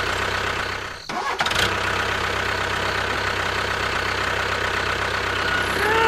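Tractor-style engine running steadily, dropping out for about half a second a second in and then picking up again. A short rising-and-falling tone sounds near the end.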